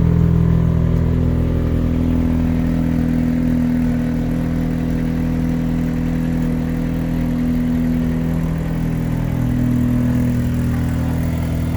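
Mazda RX-8's Renesis twin-rotor Wankel rotary engine idling steadily, heard through its exhaust.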